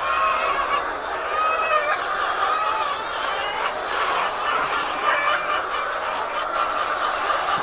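A flock of laying hens clucking and calling together: many short, overlapping calls forming a dense, continuous chorus.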